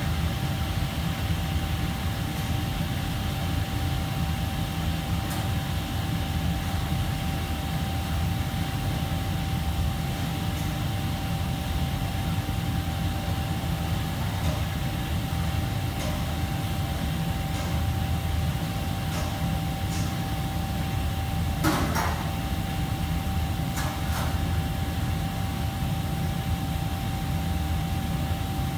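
Steady low mechanical rumble of kitchen machinery with a constant thin whine over it, and a few scattered clinks and knocks. The loudest knock comes about two-thirds of the way through.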